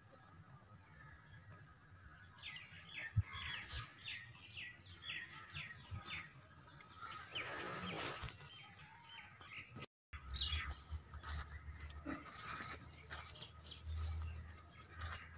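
Small birds chirping in quick, repeated short calls. A brief burst of rustling noise comes about eight seconds in, followed by a low rumble.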